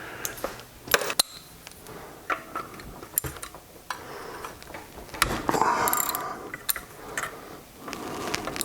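Socket ratchet wrench clicking in short runs while turning metric bolts on a Briggs & Stratton mower engine, among scattered clicks of tools on metal. The ratcheting is densest about five to six seconds in.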